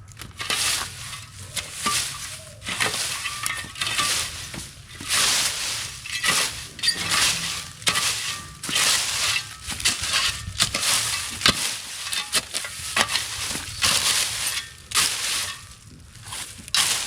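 Dry plant material crunching and rustling in irregular bursts, roughly one every half second to a second.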